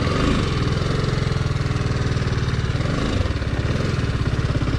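TVS Apache RR 310 motorcycle's single-cylinder engine running at low, steady revs with a fast, even pulse, dipping slightly twice.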